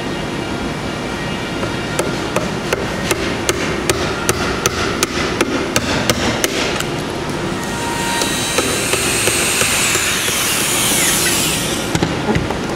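Rali Shark wood chisel cutting into softwood by hand: a run of short sharp clicks, about three a second, then a few seconds of loud hissing scrape that stops suddenly.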